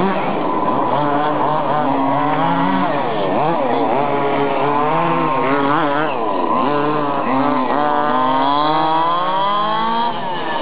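Small two-stroke petrol engines of 1/5-scale HPI Baja RC buggies, several at once, revving up and down over and over as they accelerate and lift off, the pitch rising and falling in sweeps.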